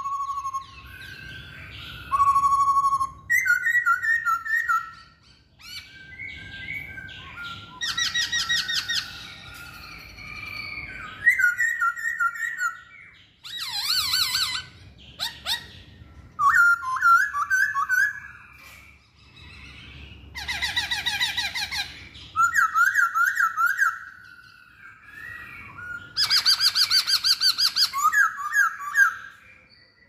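Masked laughingthrush (poksay Hongkong) singing: varied phrases every couple of seconds, runs of repeated rising-and-falling whistled notes mixed with fast trills.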